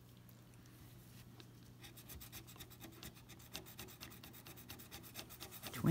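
Scratching the coating off a scratch-off lottery ticket: a faint run of quick, rapid scraping strokes that grows denser from about two seconds in.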